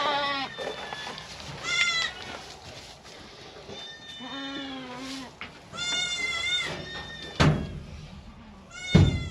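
Day-old Kiko goat kids bleating in several high, thin calls, with one lower, steadier bleat in between. Two sharp knocks come near the end, the second the loudest sound.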